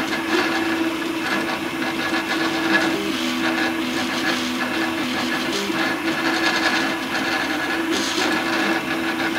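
Home-built 3D printer printing, its stepper motors humming in tones that jump between pitches every second or so as the print head changes direction and speed.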